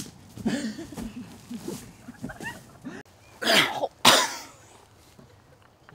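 A person groaning in short low sounds, then two loud harsh coughs, a little over three and four seconds in.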